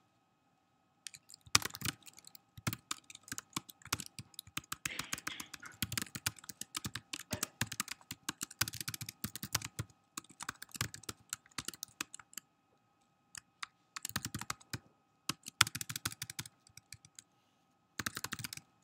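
Typing on a computer keyboard: runs of quick key clicks start about a second in, break off for about a second two-thirds of the way through, and come back briefly near the end.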